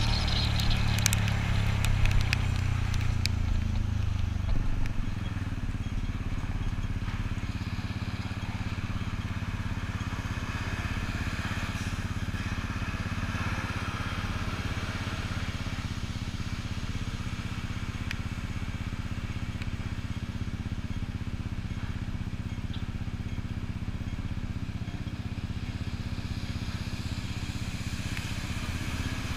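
Yamaha Cygnus scooter's single-cylinder engine winding down as the scooter slows in the first few seconds, then idling steadily while stopped, with traffic in the background.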